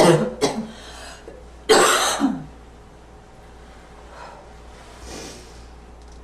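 A person's slightly wheezy, barking cough: one cough trails off at the start, a short one follows about half a second in, and a louder one comes near two seconds. Two faint breaths follow later.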